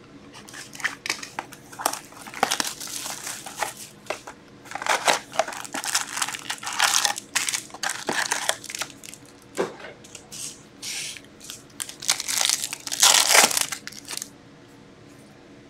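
Plastic shrink wrap and a cardboard box of Upper Deck Ice hockey cards being cut and pulled open, then foil card packs crinkling as they are handled, in a run of irregular crackly rustles. The crinkling is loudest near the end, as a foil pack is worked in the hands.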